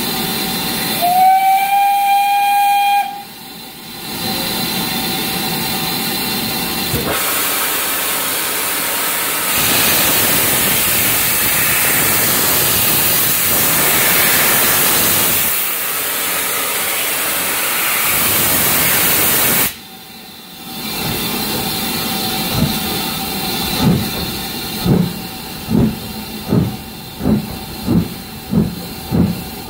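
Steam locomotive sounding a short whistle, then steam hissing loudly for several seconds. Near the end it starts away, its exhaust beats coming faster and faster.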